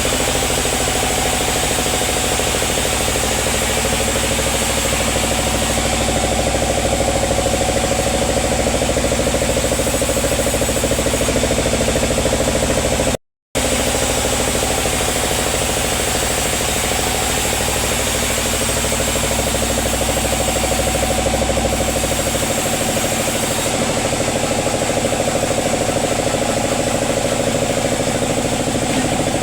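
Sawmill machinery running with a steady engine-like drone. It cuts out completely for a moment about 13 seconds in, then carries on, and its deepest part drops away a little after 22 seconds.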